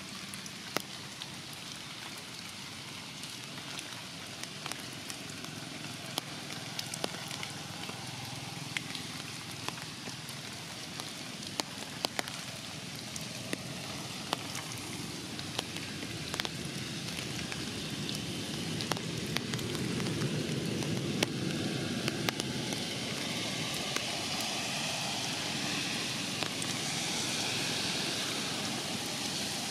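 Rain falling on forest leaves: a steady patter with many scattered sharper drips, growing heavier a little past the middle.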